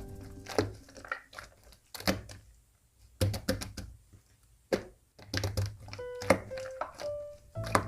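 Clear slime mixed with shaving foam and pearl powder being pressed and poked, giving a series of sharp clicks and pops, with a quiet gap in the middle. Faint background music comes in near the start and again in the second half.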